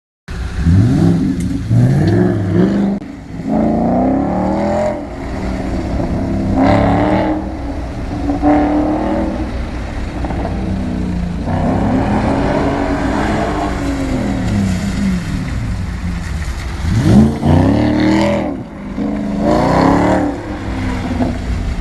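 Audi S5's 4.2-litre V8 engine revving repeatedly, its pitch rising and falling over and over, with a sharp climb in revs a little after the middle.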